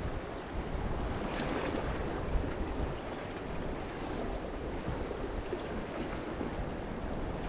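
Sea waves washing steadily against a rocky shore, with wind rumbling on the microphone.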